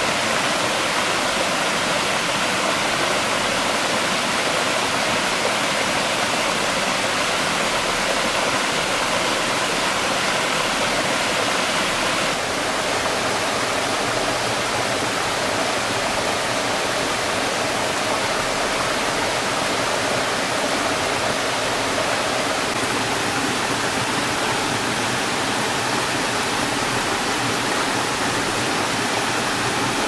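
Waterfall rushing, a loud steady roar of falling water that changes slightly in character about twelve seconds in.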